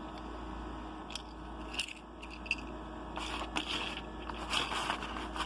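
Small fire-kit items being handled: a few light clicks, then crackly rustling and scraping from about three seconds in, over a steady low hum.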